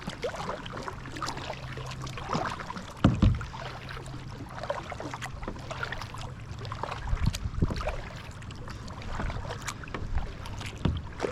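Kayak paddle strokes: the blades dipping and splashing in the water at irregular intervals, with a single sharp thump about three seconds in.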